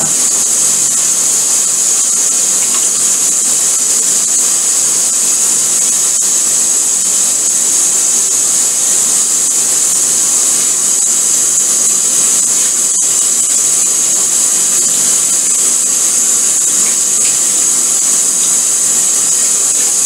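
Kitchen tap running steadily into a stainless steel sink, a constant hiss of water as hands are washed under the stream.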